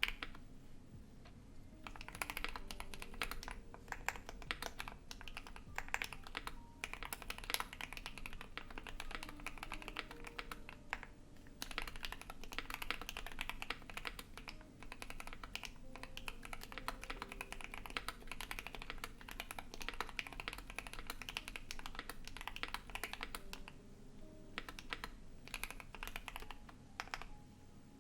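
Typing on a Keychron Q1 mechanical keyboard with lubed and filmed JWK Alpaca linear switches, a polycarbonate plate and ABS keycaps: a dense run of key clacks with a few brief pauses, softened by added reverb. A steady computer fan hum runs underneath.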